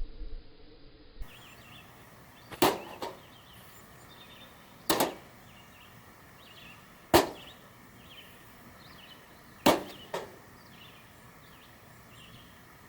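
Fishing rod swishing through the air in repeated casts: five quick whooshes about two seconds apart, the last closely doubled.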